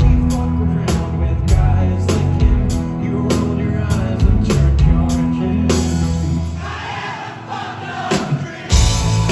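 Live rock band playing at full volume, drums and bass driving, with a crowd singing along. About six and a half seconds in, the drums and bass drop out, leaving voices and guitar, and the full band crashes back in about two seconds later.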